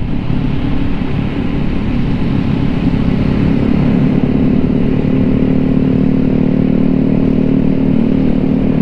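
Vespa Sprint S scooter's single-cylinder engine running at a steady cruise, with road and wind rumble.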